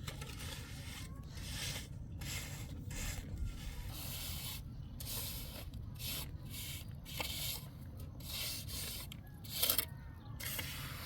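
Repeated rubbing or scraping strokes, roughly one to two a second, with a louder stroke near the end.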